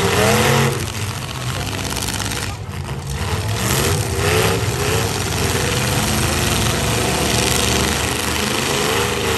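Several demolition derby pickup trucks' engines running loud and revving, the revs swelling and falling a few times.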